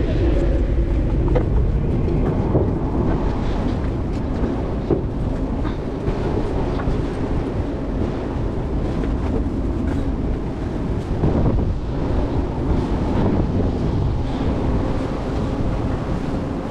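Steady low rumble of a tall ship under way at sea, with a faint steady hum under it and a few light knocks.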